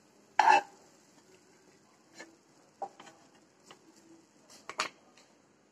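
Wooden spatula knocking and scraping against a pan and a steel plate while fried onions are moved across: one sharp knock about half a second in, then a scatter of lighter clicks and taps.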